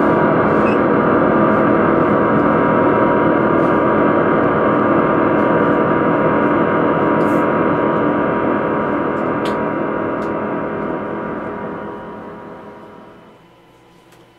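Live noise-music drone from electronic gear: a dense wall of many held, ringing tones over hiss, steady at first and then fading out over the last few seconds as the piece ends.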